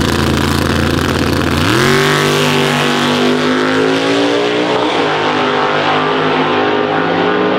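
Drag cars launching off the starting line, one a Fox-body Mustang notchback: engines held steady on the line, then about two seconds in they jump sharply in pitch and climb as the cars pull away down the strip, with a drop in pitch from a gear shift about five seconds in.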